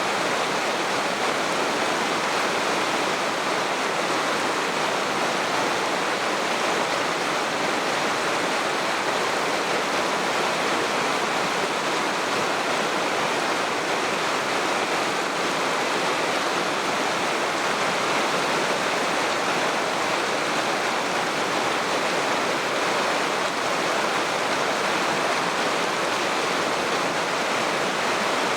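Water rushing steadily in a mountain stream, an even, unbroken rush of flowing and falling water.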